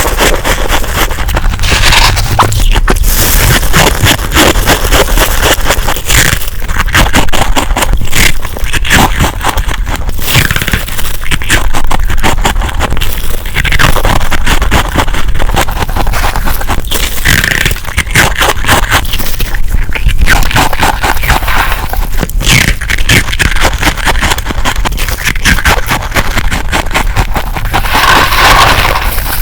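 Freezer frost being crunched up close: a loud, dense run of crisp crackling crunches with brief pauses in between.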